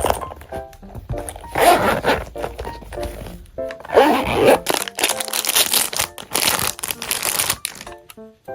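Packaging being handled and opened: crinkling and tearing in three loud spells, the longest in the second half, over soft background music with short plucked notes.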